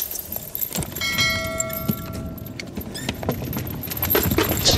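Metal fishing tackle clinking and rattling in the hands as a fish is unhooked. A steady ringing tone sounds for about a second and a half, starting about a second in.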